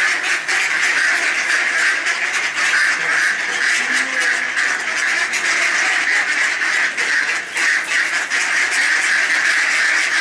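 A large flock of mallards quacking continuously, many calls overlapping in a dense chatter, as the ducks crowd round to be fed.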